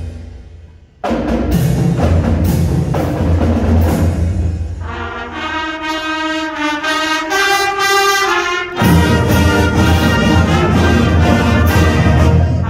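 Marching band of brass, saxophones, clarinets and drums playing. The music dies away at the start, then the full band comes in loudly about a second in. From about five seconds the low brass and drums drop out under higher held chords, and the full band comes back in loudly just before nine seconds.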